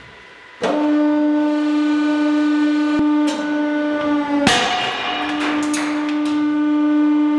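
Hydraulic press's pump running with a steady pitched hum as the ram presses down on a hardened steel bearing ball. About four and a half seconds in, the ball shatters with a sudden loud burst, and the hum carries on afterward.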